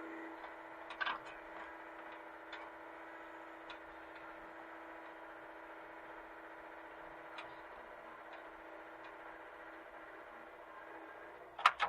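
Hitachi mini excavator engine running at a steady speed, with a few sharp clicks scattered through and a louder double knock near the end.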